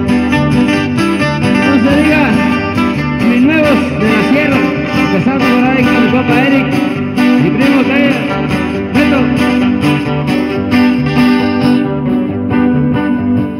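Live band music led by acoustic guitars, strummed over a moving bass line and played through microphones and a speaker system.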